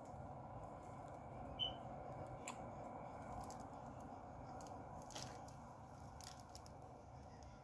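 Faint, steady hum and rumble of distant road traffic heard from indoors, with light clicks of a phone being handled and one short, high chirp about one and a half seconds in.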